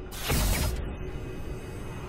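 Logo sting sound effect with music: a loud swoosh in the first second, then a lower, steady rumbling tail.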